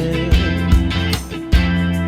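Live band playing an instrumental passage of an R&B/rock song: guitar chords over a bass line and a steady drum beat, with no singing.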